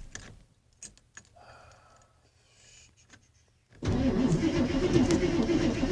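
Ford F-150 engine being cranked to start: a few light clicks in near quiet, then about four seconds in the starter suddenly turns the engine over with a rapid, uneven pulsing. This is a hard start after the truck has sat for about four weeks.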